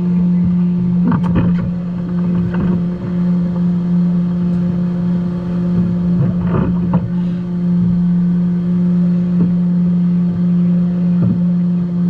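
Offshore race boat's engines idling with a steady low hum, with scattered knocks and rattles in the cockpit.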